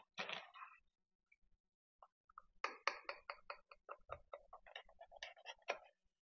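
Knife cutting a slice through a pie's graham cracker crust in a pie dish: a quick run of short scrapes and clicks, several a second, starting a little past halfway through.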